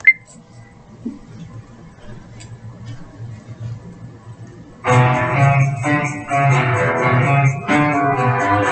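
Instrumental intro of a guitar-led band song: a sharp click at the start, a few seconds of quiet, sparse playing with a low pulse, then the full band with guitar comes in about five seconds in over a steady ticking beat.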